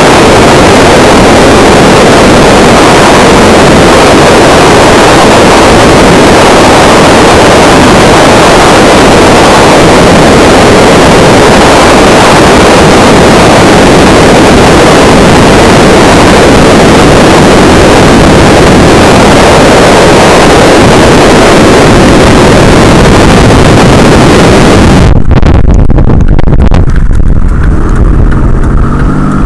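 Loud, distorted wind rushing over the microphone from a moving car, a steady roar of noise. About 25 seconds in it gives way to the lower, muffled rumble of the car's cabin.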